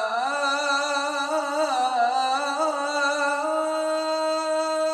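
A man's voice chanting the adhan, the Islamic call to prayer, in one unbroken ornamented melodic line. Near the end it settles on a long held note.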